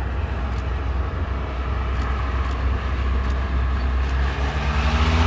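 Can-Am Spyder three-wheeled motorcycles riding past, with a steady low engine hum and road noise. Near the end an engine note rises as a machine accelerates.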